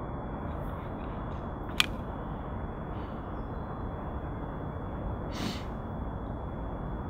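Outdoor ambience: a steady hiss and rumble like light wind on the microphone, under a faint steady high tone. A single sharp click comes about two seconds in, and a short breathy rustle a little past five seconds.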